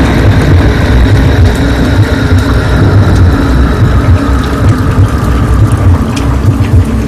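Loud, rough low rumble with uneven buffeting, and a faint whine slowly falling in pitch.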